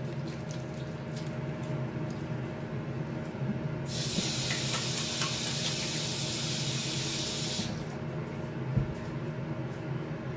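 Kitchen tap running for a few seconds in the middle as hands are rinsed, then shut off sharply, with small clatters around it and a soft thump after. A steady low hum from the preheating countertop air fryer oven runs underneath.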